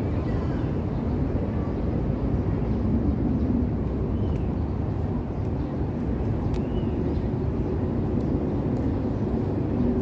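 Steady low rumbling outdoor city ambience, with a few faint high clicks and two faint short chirps, about four and six and a half seconds in.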